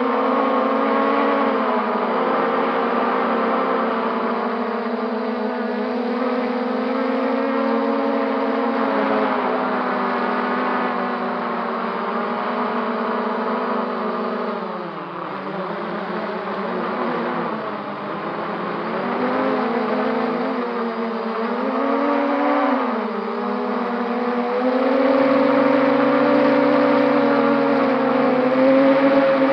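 Brushless motors and propellers of an MJX Bugs 3 quadcopter whining in flight, the pitch rising and falling with the throttle. The whine drops twice near the middle, then climbs and holds higher near the end.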